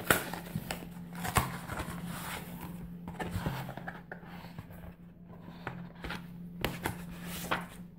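A large mailing envelope being torn open and handled: irregular paper rustles and rips, the sharpest right at the start and about a second and a half in. A steady low hum runs underneath.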